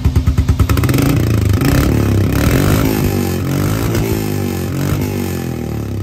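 Royal Enfield 350's single-cylinder engine running through an aftermarket Canon exhaust. It idles with an even thump about seven times a second, is revved about a second in, rises and falls in pitch a few times, and drops back toward idle near the end.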